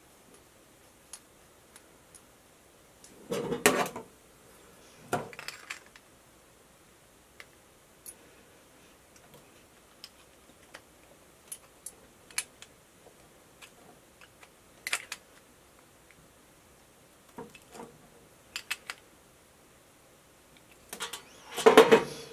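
Scattered light metallic clicks and clinks from a small open-end wrench and metal fittings being handled and tightened on a flow-indicator block, with a few louder clatters about three to four seconds in and near the end.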